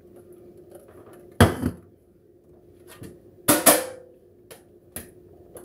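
Two sharp clatters of kitchenware set down on a counter, about two seconds apart, the second with a brief ring, and a few light clicks between them.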